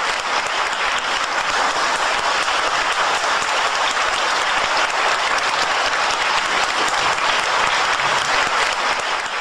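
Theatre audience applauding steadily, a dense even clatter of many hands clapping.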